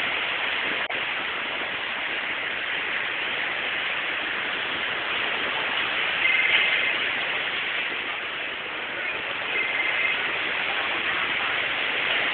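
Steady rushing hiss of ocean surf breaking on a beach.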